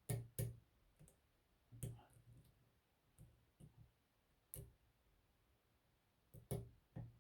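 Faint, scattered metallic clicks of a lock pick and tension wrench working the pin stack of an Abus 64TI/50 titanium padlock, irregularly spaced with short pauses between them.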